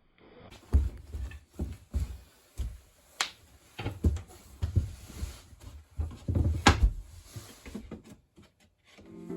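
Irregular knocks and thumps on wood, about one or two a second, from hand carpentry work fitting plywood panels and trim inside a closet.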